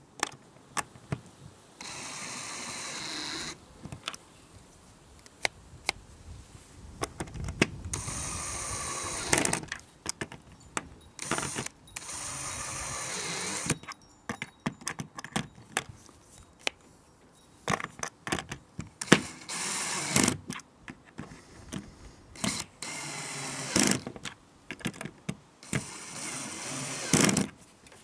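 Handling noise from a pressure washer trigger gun and its parts: many irregular clicks and knocks of hard plastic and metal pieces being turned over and fitted together, with a few stretches of rubbing or scraping lasting a second or two.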